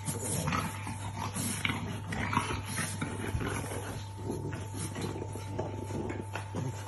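French bulldogs play-fighting, making short, irregular dog noises as they wrestle and mouth at each other.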